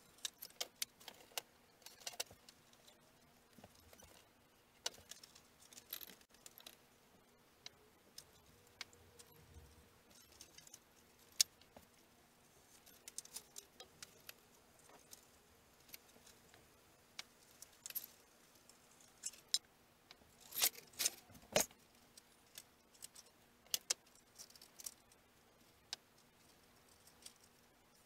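Scattered small clicks, taps and light clinks of hands handling balsa strips and small tools on a wooden workbench, with a denser flurry about two-thirds of the way through. A faint steady hum runs underneath.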